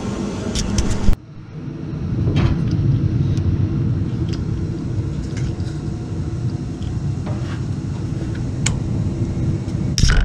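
A steady low rumble with scattered light clicks and ticks, from plastic fittings and pliers being worked loose. The sound drops out abruptly about a second in, then the rumble builds back and carries on.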